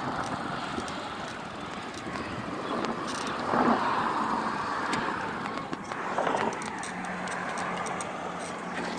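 Noise of a bicycle being ridden: wind on the microphone and tyres rolling over pavement, with car traffic passing, in several louder swells. A steady low hum comes in about seven seconds in.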